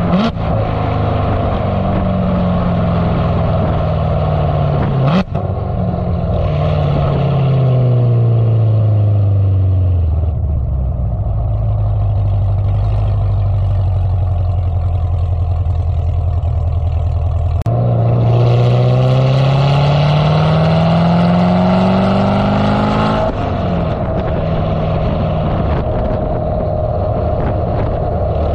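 C7 Corvette Z06's supercharged LT4 V8 exhaust, running through long-tube headers and a catted X-pipe, heard close to the tailpipes while driving. The revs fall away after a sharp click about five seconds in, then stay low and steady. About eighteen seconds in the engine accelerates with a rising pitch for about five seconds, then the revs drop suddenly to a steady cruise.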